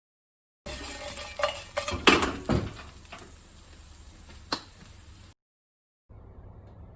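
Cooking sounds: a metal utensil clinking and knocking against a pan several times over a steady frying sizzle. The knocks are loudest about two seconds in, with one more clink around four and a half seconds. The sound cuts off suddenly just past five seconds, and a faint steady background noise follows.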